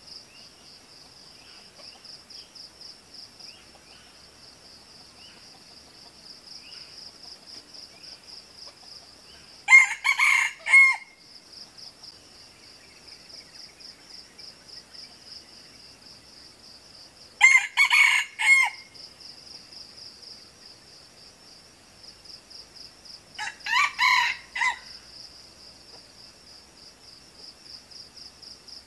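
Red junglefowl rooster crowing three times, about seven seconds apart; each crow is short and broken into a few syllables. A steady, pulsing high insect buzz runs underneath.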